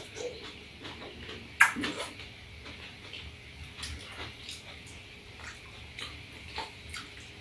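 Two people eating apricots: wet chewing, lip smacks and slurps of the juicy fruit in short scattered clicks. The loudest is a sharp mouth noise about a second and a half in.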